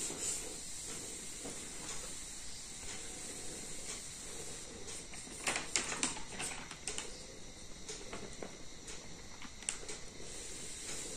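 Quiet room tone: a steady faint hiss, with a few soft clicks about five to seven seconds in and once more near the end.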